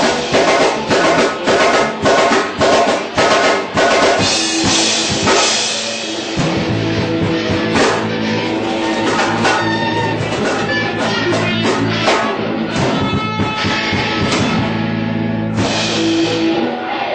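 Live rock band, with a drum kit and distorted electric guitars, playing the closing section of a song. It opens with hard accented hits about twice a second, then moves to long held chords under cymbal crashes, and cuts off just at the end.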